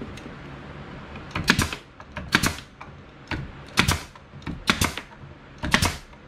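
Bostitch pneumatic nail gun firing nails into cedar boards: about five sharp shots, roughly a second apart.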